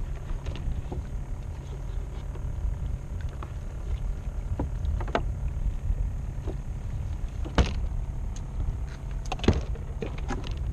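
Steady low rumble of wind and choppy water around a fishing kayak, with a few sharp knocks of gear against the hull, the loudest about two-thirds of the way through and again near the end.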